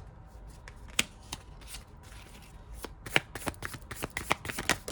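A deck of tarot cards being shuffled by hand: a few separate card snaps in the first two seconds, then a quick run of card clicks from about three seconds in.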